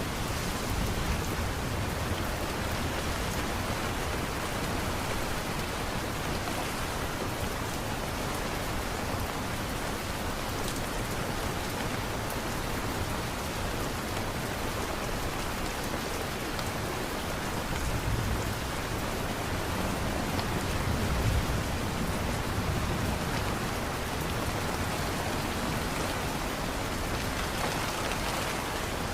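Steady, even rainfall pattering on a surface. Twice, a little past halfway through, a low rumble swells briefly under the rain.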